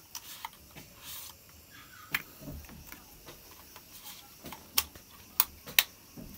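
Sharp, irregular plastic clicks and taps from a DJI Mini 2 drone being handled, its plastic body and folding arms knocking and snapping, with the loudest clicks in the second half. A brief rustle comes about a second in.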